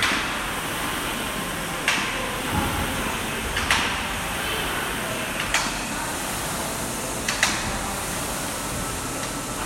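Steady noisy gym ambience during a timed fitness workout, with about five sharp knocks of equipment a second or two apart.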